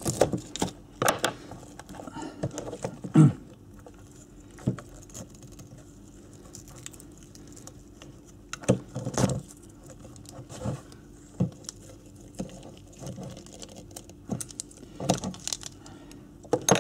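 Hand tools (a thin pick and pliers) picking, tugging and snipping old copper winding wire off the ignition source coil of a Honda CB250N stator: irregular clicks, scrapes and small metallic rattles. The coil is being stripped down to be rewound.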